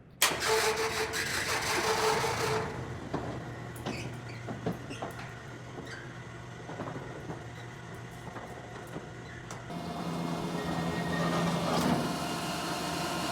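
Roll-up steel shutter door running: a steady motor hum with the slats clicking and rattling as they roll. The hum shifts to a different pitch about ten seconds in.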